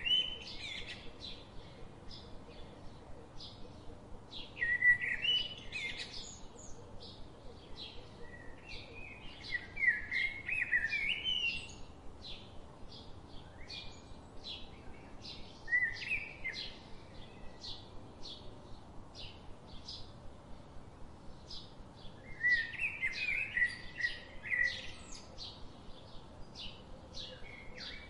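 Birds singing: warbling phrases come every few seconds, with short high chirps repeating about twice a second in between.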